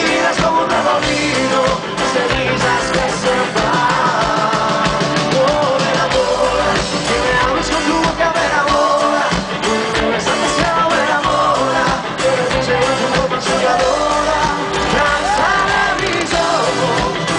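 A live rock band plays loudly through a concert PA, with electric guitars and keyboards and singing over them, as heard from inside the audience.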